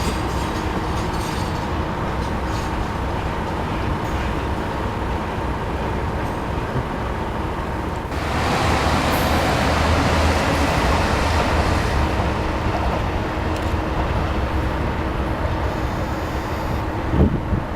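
A stationary train runs with a steady hum that carries a couple of constant tones. About eight seconds in, a louder rush of noise swells up and lasts a few seconds before easing off.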